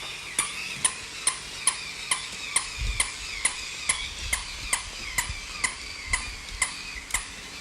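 Mechanical jumping toy dog running, its mechanism clicking in an even rhythm of a little over two clicks a second, with a faint wavering whine between the clicks.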